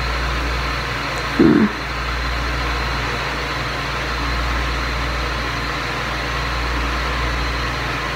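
Steady low hum and hiss of background noise, with one short, louder low sound about a second and a half in.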